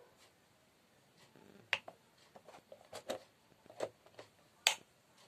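Switches on a household electrical switchboard clicking as they are flipped on and off: several sharp separate clicks, the loudest near the end.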